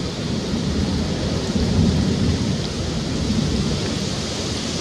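Wind buffeting the microphone: a steady, low rumbling noise.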